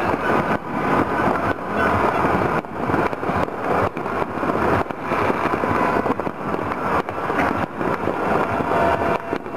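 Many firecrackers and fireworks going off across a city at once, merging into a continuous dense crackle of irregular small bangs with no pause.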